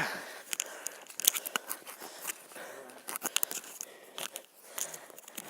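Irregular crunching and crackling of footsteps on the forest floor during an uphill hike, several sharp clicks a second.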